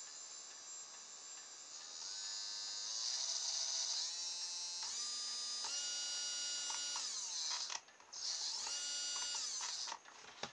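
Small DC motor, which the owner takes for a hairdryer motor, whining as it runs from a cordless drill's battery through the drill's variable-speed trigger. The pitch rises and falls as the trigger is squeezed and eased. The motor stops about three-quarters of the way in, starts again and stops near the end.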